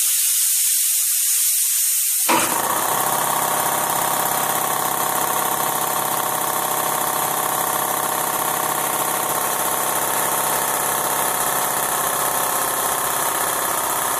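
A steady hiss, then a little over two seconds in an air compressor starts up suddenly and runs on steadily, supplying air for the spray gun.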